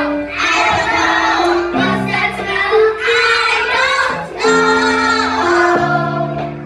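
Children singing a song with instrumental accompaniment, the backing moving through held chords.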